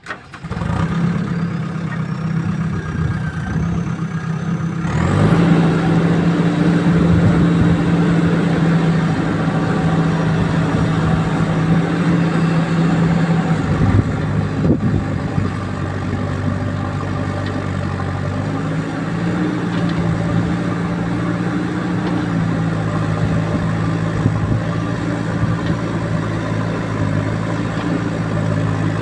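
JCB 3DX backhoe loader's diesel engine running steadily. It grows louder about five seconds in and holds at higher revs, with the pitch shifting a couple of times.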